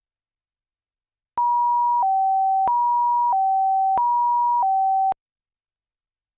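Japanese ambulance siren pattern (pee-po) made of pure tones: three high-low pairs alternating between about 960 Hz and 770 Hz. It starts about a second and a half in and cuts off suddenly with no reverberation tail: the dry siren, with no reverb applied.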